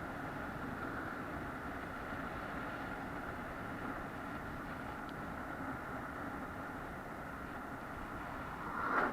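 Steady running noise of a moving vehicle, with a brief louder swell near the end.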